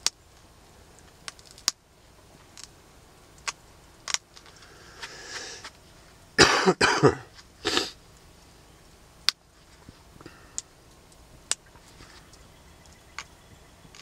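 Pressure flaking: a deer antler tine presses small flakes off the edge of a broken stone arrowhead held in a leather pad. Each flake comes off with a sharp click, scattered about a second apart. About halfway through a person coughs, the loudest sound.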